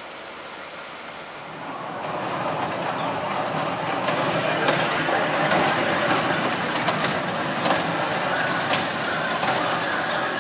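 A children's amusement-park ride train running on its track: an even rolling noise that swells about two seconds in, with a few sharp clicks.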